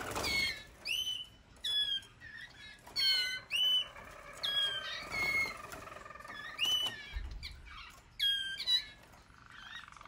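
Male roller canaries giving short, sharp calls that sweep quickly in pitch, a dozen or so on and off, as the caged males fight.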